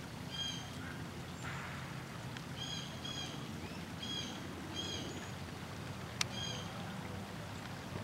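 A bird calling, about six short repeated notes, some in quick pairs, over a steady low background noise; a single sharp click about six seconds in.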